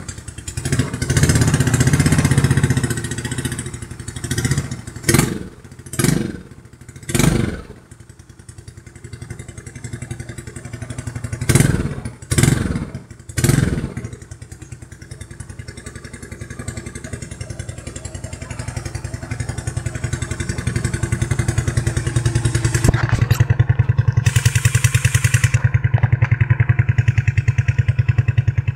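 Yamaha Mio scooter's single-cylinder four-stroke engine running through an aftermarket Yonk Jaya muffler. It revs in the first few seconds, then gives three quick throttle blips about five to seven seconds in and three more about twelve to thirteen seconds in. After that it idles steadily, louder in the last few seconds.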